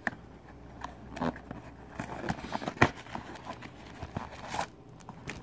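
Trading card packaging being opened and handled: a string of irregular crinkles and clicks, the sharpest about three seconds in.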